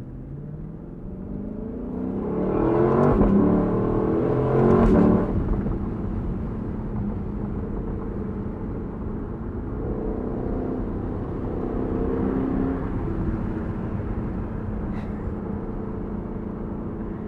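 Lexus LC500's 5.0-litre V8 accelerating hard, its pitch climbing in steps through upshifts and loudest a few seconds in, then easing back to a steady cruise with a second, milder pull about ten seconds in. Heard from the open cabin with the convertible top down.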